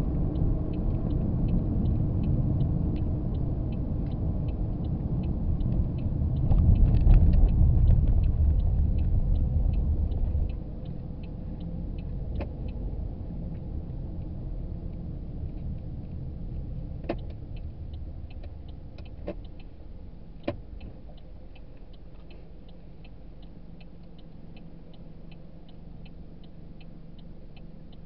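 Road and engine rumble heard from inside a moving car. It is loud for about the first ten seconds, then drops suddenly to a lower, fading rumble as the car slows to a stop. A faint, even ticking runs underneath, and a few sharp clicks come in the second half.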